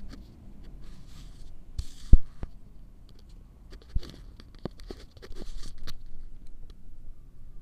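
Kitten eating cooked rice off a plastic lid right at the microphone: short bursts of chewing, crunching and scraping noise with small clicks, a sharp knock about two seconds in and a smaller one about four seconds in.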